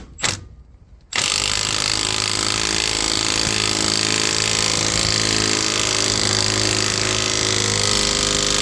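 Impact wrench driving a lug nut down on a wheel stud installer tool, pulling a new extended wheel stud into the axle flange. Two short blips right at the start, then it runs steadily from about a second in.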